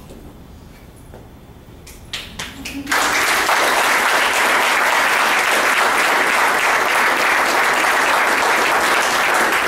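Audience applauding: a few scattered claps about two seconds in, then full, steady applause from about three seconds in.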